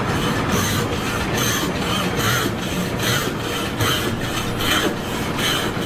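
Rhythmic mechanical scraping or rasping, repeating about three to four times a second at an even pace.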